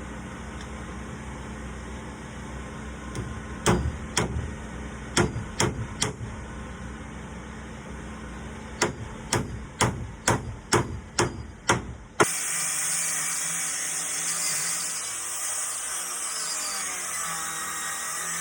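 Hammer driving hand-forged nails through a handmade iron door hinge: two runs of sharp blows, about five and then about seven, roughly two a second. About two-thirds of the way in the sound cuts abruptly to a steady hiss.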